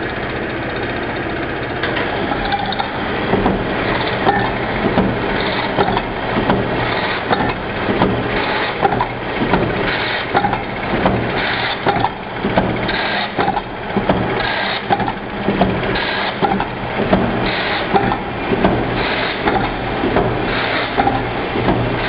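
LANICO BF-311 production machine running: a steady motor hum with its moving parts clattering in repeated strokes about once a second.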